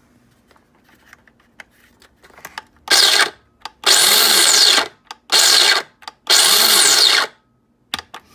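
Mr. Coffee burr coffee grinder motor whirring in four short bursts, each about half a second to a second long and cutting out again, after a few faint clicks. The grinder will only run in short bursts instead of grinding continuously, a fault the owner suspects is in its timer.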